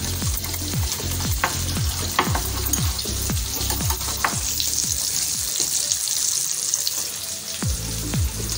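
Wire whisk stirring a mayonnaise-based sauce in a glass bowl, with a few light clicks against the glass, over a steady sizzle of chicken pieces deep-frying in a pan. A low thump repeats about twice a second underneath.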